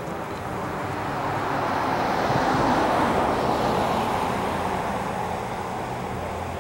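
A car driving past on the road: tyre and engine noise swells to its loudest about three seconds in, then fades away.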